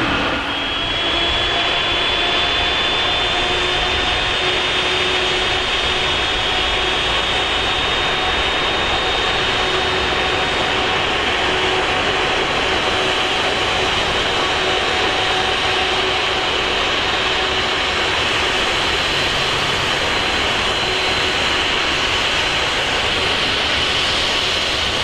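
Jet airliner engines running loud and steady, with a high whine that rises slightly over the first few seconds and then holds.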